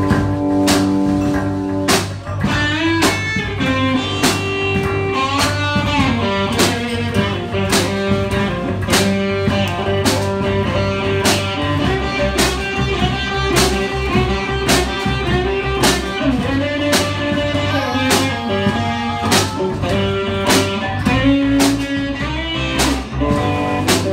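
Live blues band playing an instrumental break: electric guitar lead with bent notes over bass guitar and a steady drum beat.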